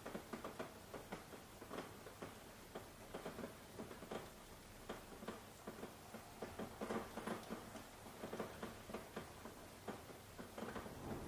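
Faint rain: individual raindrops tapping irregularly, several small ticks a second over a soft hiss.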